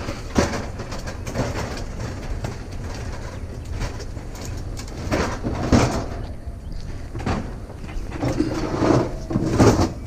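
Irregular metallic clanks, rattles and scrapes, as of scrap metal being handled, over a steady low rumble.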